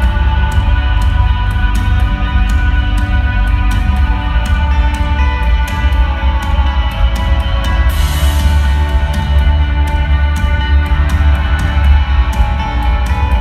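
Live rock band playing a stretch of the song without vocals: drums on a steady beat under guitars and heavy bass, with a cymbal crash a little past halfway.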